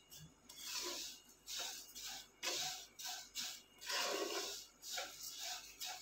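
Wooden spatula stirring fine vermicelli as it roasts in ghee in a nonstick wok: a run of soft scraping, rustling strokes, about one and a half a second.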